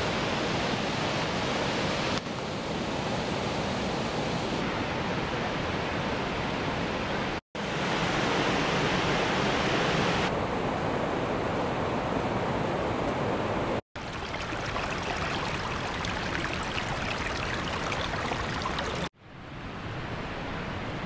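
Steady rush of water from Havasu Creek's waterfalls and cascades, an even hiss with no distinct tones. It drops out abruptly three times, at about a third of the way in, two thirds in and near the end.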